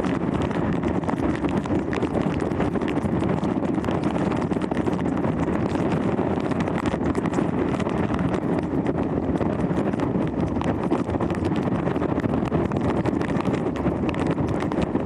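Hurricane-force wind blowing hard across the microphone: a dense, steady rush with constant rapid crackling buffets.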